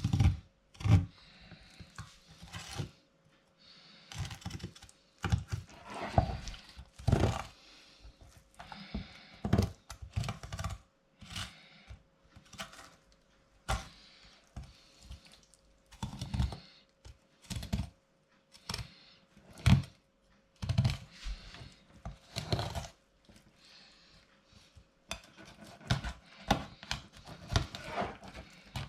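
Irregular knocks, thuds and scraping of a filleting knife working a large turbot on a board, with the fish shifted and slapped down between cuts. A faint steady hum sits underneath.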